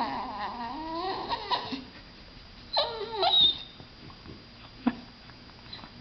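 A dog vocalizing in odd, talking-like calls. A long wavering call slides up and down in pitch and fades out in the first two seconds, then two short calls come about three seconds in.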